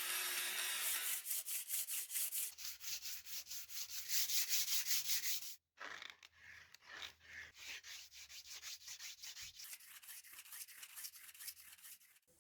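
Rapid back-and-forth hand rubbing on metal, the scratchy strokes of abrasive cleaning on a rusty padlock's parts, several strokes a second. The strokes start about a second in, break off briefly a little past halfway, and go on more faintly.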